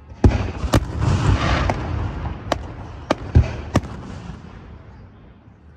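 Aerial fireworks shells bursting: a run of sharp bangs, about seven in the first four seconds, with crackling between them, dying away near the end.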